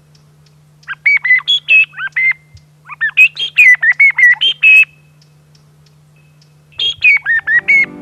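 Handmade bird call (appeau) blown to imitate birdsong: two runs of quick, whistled up-and-down chirps, the first starting about a second in and lasting about four seconds, the second starting near the end.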